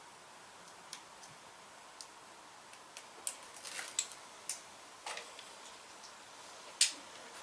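Light, irregular clicks and taps of small hardware and plastic parts being handled and fitted while mounting a mud guard, with one sharper click near the end.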